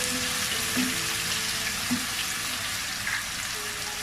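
Onion paste frying in hot oil in a kadai, a steady sizzle, with a few brief clicks as it is stirred.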